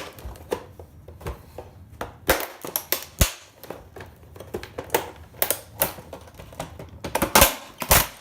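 Irregular clicks, knocks and clatter of a set-top box's casing and internal parts being handled and pulled apart, with a cluster of louder knocks near the end.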